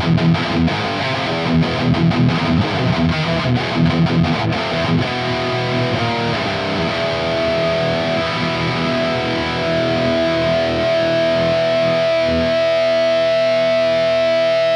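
High-gain distorted electric guitar through a Laney GH100TI all-tube amp head, boosted by an overdrive pedal and played into a 4x12 cab with Vintage 30 speakers, close-miked with an SM57 and unprocessed. For about five seconds it plays chugging, palm-muted riffs, then moves to sustained chords and ends on a long held chord that rings on.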